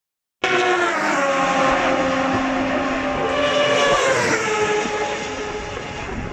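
Racing motorcycle engine at high revs passing at speed, starting abruptly about half a second in, its note dropping in pitch about four seconds in as it goes by.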